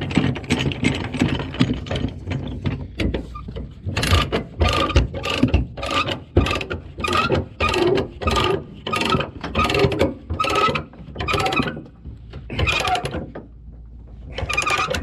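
Ratchet chain load binder being cranked by hand: rapid clicking of its pawl at first, then an even run of ratchet strokes about two a second, with a couple more near the end, as the tie-down chain is tightened.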